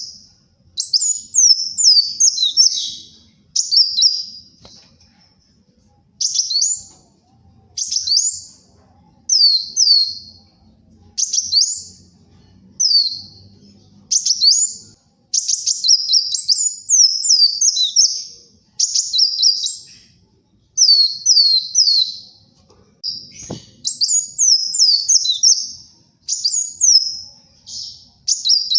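Kolibri wulung sunbird singing loudly and persistently: short bursts of rapid, high-pitched twittering notes, repeated every second or two.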